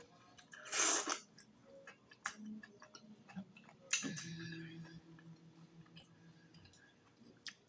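Close-miked chewing of beef tripe: small wet mouth clicks and smacks, with a louder wet smack about a second in. Midway there is a low closed-mouth hum lasting about two seconds.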